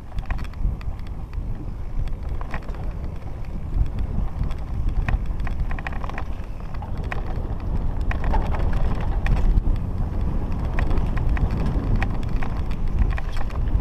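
Wind buffeting the microphone of a handlebar-mounted camera on a mountain bike descending rough grassy ground, with the tyres rumbling over the turf and frequent rattles and clicks from the bike.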